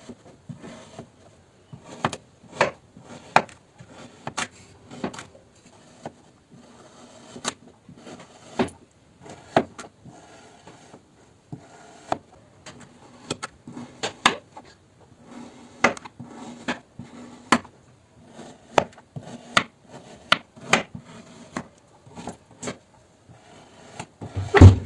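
Kinetic sand being cut with a blade: a soft crumbly rustle broken by sharp taps, irregular at about one to two a second. A heavier thump comes near the end.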